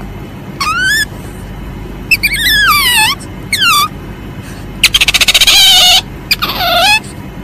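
Civet giving a series of five high-pitched calls, most of them sliding down in pitch, with a rapid stuttering call lasting about a second near the middle.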